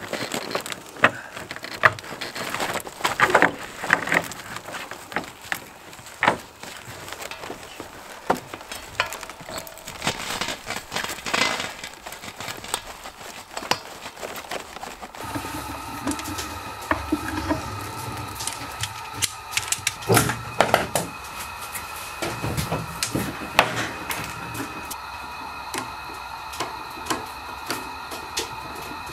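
Clicks, knocks and rustling of hands working with tools and materials. About halfway through, a steady hum of several held tones sets in beneath the clicks.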